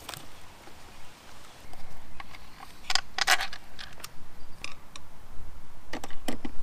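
Handling noise from a plastic LED floodlight fixture being fitted to its wall mount: scattered clicks and knocks of plastic on plastic, with a short burst of crinkling from its clear protective wrap about three seconds in, and more clicks near the end.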